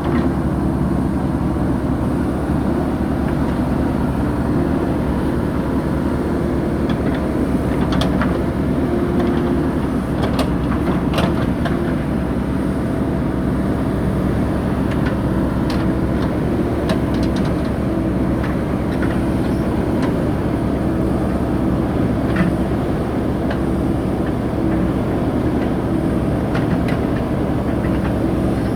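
JCB 3DX backhoe loader's diesel engine running steadily under working load, with scattered short sharp knocks.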